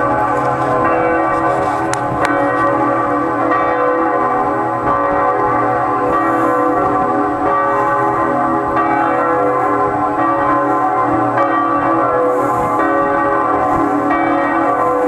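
Two large cast-bronze church bells, cast in 1858 by Havard of Villedieu and tuned to C-sharp and B, swinging in full peal for Sunday mass. Their strokes ring continuously and overlap in a dense wash of tones.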